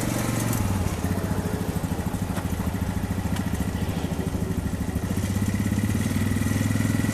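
Yamaha Grizzly 550 ATV's single-cylinder four-stroke engine running at low speed as the quad is ridden slowly. Its note is steady with an even, rapid pulsing, most marked in the first few seconds.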